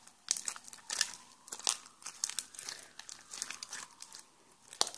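Glue-and-borax slime squeezed and kneaded by hand, giving irregular sticky clicks and crackles.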